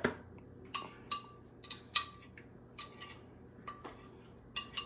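A spoon clinking and scraping against the inside of a glass bowl, scooping out thick red pepper puree. It gives a series of short, irregular clinks, about a dozen.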